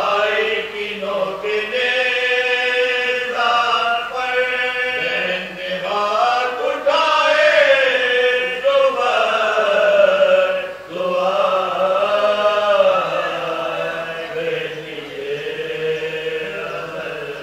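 A group of men chanting a Shia marsiya (elegy) in unison around a microphone, unaccompanied. They sing long held notes that bend up and down, with a brief pause for breath about eleven seconds in.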